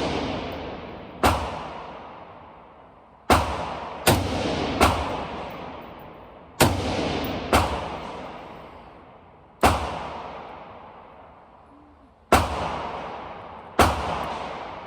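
Radical Firearms AR-15 rifle firing nine single shots at an uneven, unhurried pace, sometimes under a second apart and sometimes nearly three seconds apart. Each shot rings on in a long echo off the walls of an indoor range.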